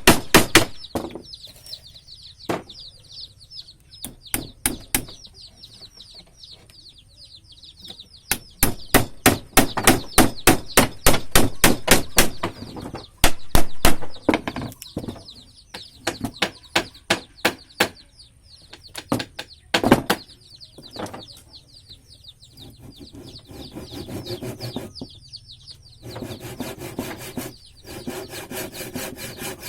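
Hammer blows on wood in quick runs of sharp strikes, about four a second at their fastest, with pauses between runs. Near the end, a hand saw starts cutting wood with a steady back-and-forth rasp.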